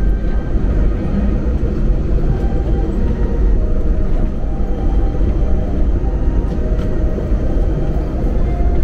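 Steady low rumble of an airliner cabin in flight: engine and airflow noise heard from inside the passenger cabin, with faint steady hum tones above it.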